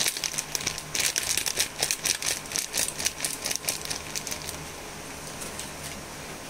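Small plastic packet of garam masala powder crinkling as it is squeezed and shaken over a pan, a dense run of rapid crackles that dies away about four seconds in, leaving a faint steady hiss.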